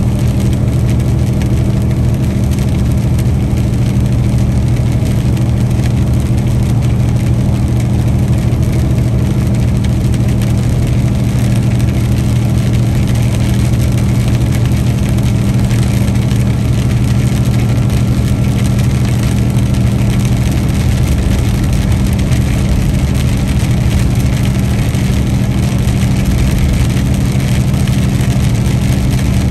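Peterbilt 579 semi-truck engine running steadily while driving, a constant low drone with an even hiss over it.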